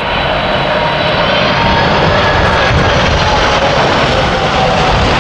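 Boeing 747-400 freighter's four turbofan engines on landing approach: a loud, steady jet roar with whining tones that slowly fall in pitch as the aircraft passes.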